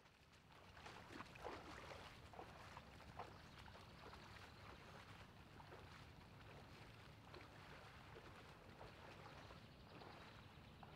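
Faint sloshing and splashing of legs wading through a shallow stream, with a few small splashes in the first few seconds over a steady low water hiss.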